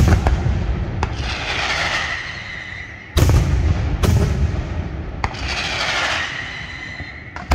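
Aerial firework shells bursting overhead. Heavy bangs come at the start and again about three and four seconds in, with lighter reports between. A hissing, rumbling tail follows each burst.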